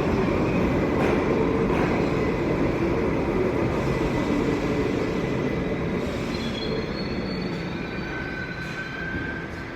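An R68A subway train running along the track, a dense rumble and clatter of wheels on rails that slowly grows quieter. Thin, high wheel squeals come in about six seconds in.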